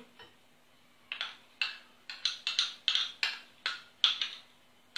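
A metal spoon tapping and clinking against a small bowl as butter is scooped out of it into a glass dish. About a dozen quick, sharp clinks start about a second in.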